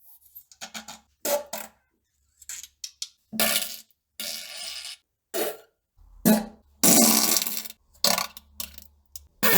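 A string of separate farts of varying length with short silences between, several with a buzzy low pitch; the longest lasts about a second, a little past the middle.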